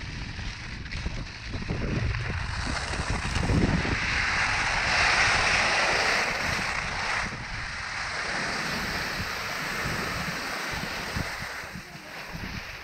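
Steady rushing hiss of cross-country skis gliding over packed snow, mixed with wind on the microphone; it swells about four seconds in and eases after about seven.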